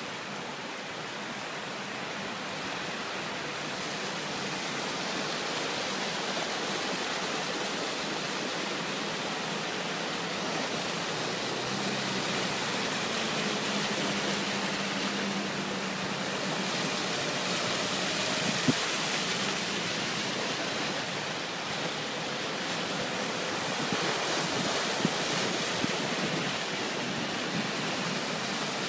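Steady rush of an overflowing brook pouring floodwater across a road, with cars driving and splashing through it. A vehicle engine hums faintly about halfway.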